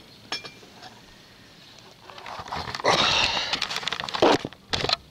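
Handling noise from a handheld camera being turned round: rubbing and knocking against the microphone that turns loud about three seconds in, after a quieter stretch.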